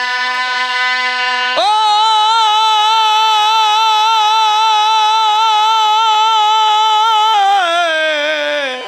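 A man's amplified voice holds one long, high sung note with a wide vibrato, starting about a second and a half in, then slides down in pitch near the end. This is a drawn-out melodic cry of a zakir's sung recitation. A steady drone tone sounds underneath throughout.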